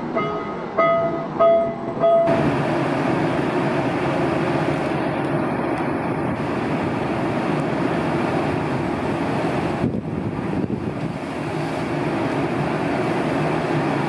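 A repeating pitched beep sounds about twice a second for the first two seconds. It gives way to the steady mechanical running noise of a Panama Canal mule, the electric towing locomotive, travelling on its rail track beside the lock.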